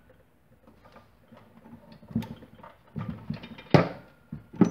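Light clicks and taps of a wrench working the torque converter's clutch bolt as it is run snug, then two louder metal clanks near the end, the first one ringing.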